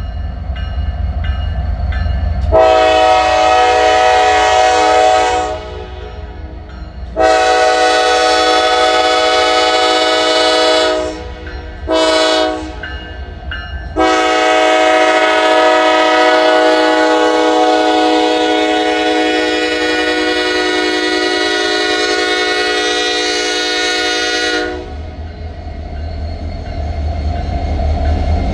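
Lead Norfolk Southern diesel locomotive's air horn sounding the grade-crossing pattern: long, long, short, then a final blast held about ten seconds. A low diesel rumble runs under it and is left alone after the horn stops, as the locomotives pass close by.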